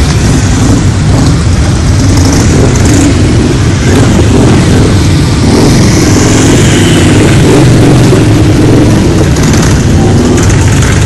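A stream of big cruiser and touring motorcycles riding past close by, their engines loud and continuous, with pitches rising and falling as the bikes pull away.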